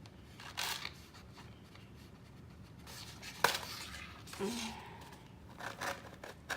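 A small hole being cut or poked through a paper plate: short scraping, crackling bursts of paper being worked, with a sharp click about three and a half seconds in.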